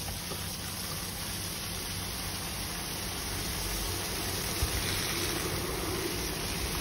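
Meltwater gushing steadily out of a roof drain pipe onto packed snow, a constant rushing pour that grows a little louder in the second half: the ice plug has been smashed open and the water pooled on the roof is draining.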